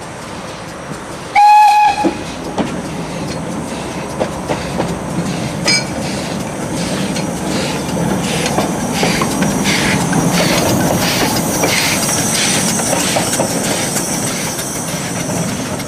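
Small narrow-gauge steam locomotive gives one short whistle about a second and a half in, then pulls away and passes close by, its exhaust chuffing about twice a second over a steady hiss of steam, growing louder as it goes by.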